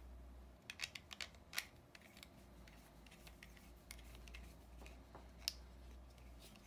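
Faint, sharp plastic clicks and taps from handling an action camera in its plastic frame case and quick-release mount. A quick cluster comes about a second in as it is set down, then a few scattered ticks, over a faint low hum.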